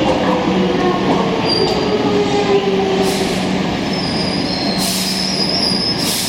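Hankyu Railway electric train running and slowing, its motor whine falling slowly in pitch over a steady low hum. Thin high wheel squeals come through, with a few short hisses in the second half.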